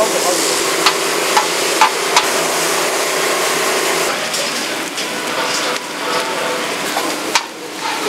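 Food sizzling in a wide cauldron-lid pan, with several sharp clacks of a utensil against the metal in the first couple of seconds and one more near the end.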